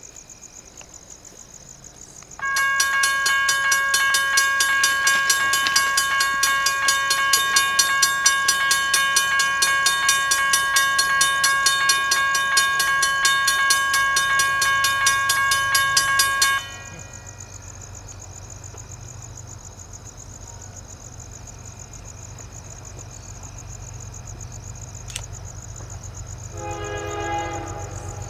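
Railroad grade-crossing warning bell ringing rapidly and evenly, starting a couple of seconds in and cutting off suddenly about halfway through. After that the low rumble of an approaching diesel locomotive grows, and near the end comes a short blast of the locomotive's horn.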